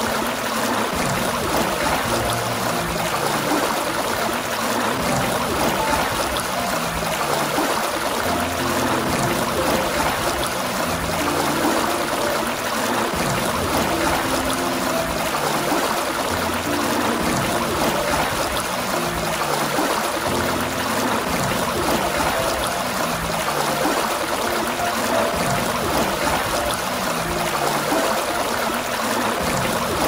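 Water gushing steadily from a fountain spout, a continuous splashing rush with no break.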